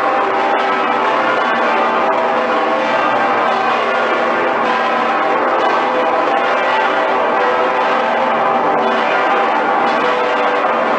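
Cologne Cathedral's bells ringing in full peal, the great St. Peter's Bell and Pretiosa among them: many swinging bells striking over one another in a steady, unbroken mass of overlapping tones.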